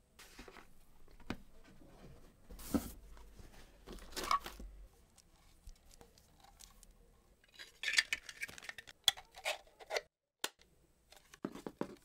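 Quiet unboxing handling noises: a paper leaflet rustling and folding, then scattered clicks and rustles as a small power adapter and its cable are taken out and turned over in the hands.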